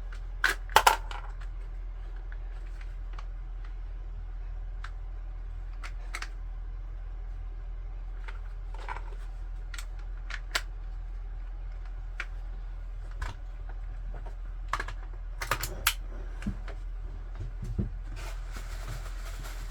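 Scattered clicks and light knocks of small hard objects being handled, the loudest a pair of knocks about a second in, over a steady low hum.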